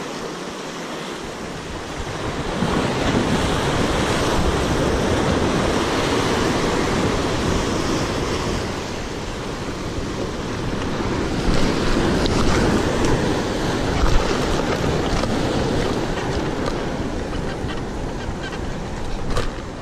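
Sea surf breaking and washing over rocks close by, with wind buffeting the microphone. The surge swells about two seconds in, then rises and eases with the waves, and a couple of short knocks come later on.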